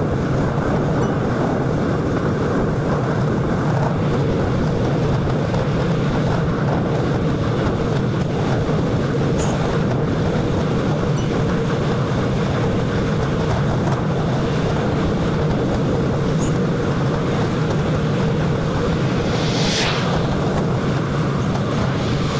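Steady wind rush on the microphone of a handlebar-mounted camera on a bicycle riding fast, with a low steady road hum underneath. A few brief high-pitched sounds break through, twice near the end.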